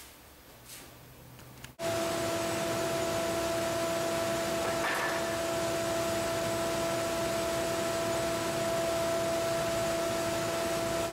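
Faint room tone with a couple of small clicks. About two seconds in, a steady workshop machine noise sets in abruptly: an even hiss with a constant two-note hum and a faint high whine that does not change.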